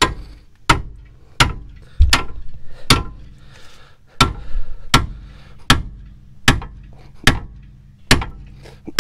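A hammer striking the end of a steel pickle fork to force apart a seized front ball joint. About a dozen sharp metal blows come a little under one a second, with a longer gap about three seconds in.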